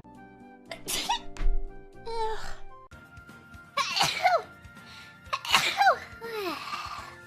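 Young women's sneezes in quick succession: about three sharp sneezes, one about a second in and two close together near four and five and a half seconds, the voice falling in pitch after each. Faint background music plays under them.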